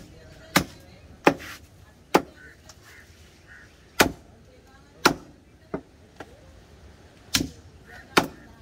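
Large cleaver chopping through fish onto a wooden log chopping block: about eight sharp chops at uneven intervals, roughly a second apart.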